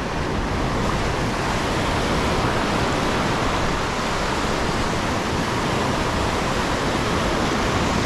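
Breaking surf washing up a sandy beach: a steady, unbroken rush of waves.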